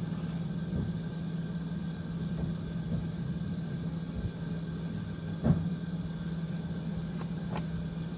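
Steady low hum with a few light handling clicks, and one sharper click about five and a half seconds in.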